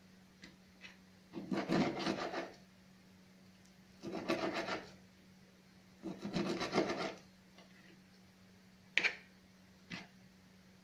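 Kitchen knife sawing raw pork into long strips on a plastic cutting board: three rasping bursts of quick back-and-forth strokes, each about a second long, then two sharp taps near the end. A steady low hum runs underneath.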